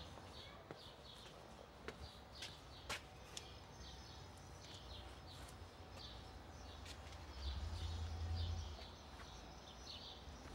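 Outdoor ambience of small birds chirping again and again, with a few sharp clicks in the first few seconds and a low rumble that swells briefly about eight seconds in.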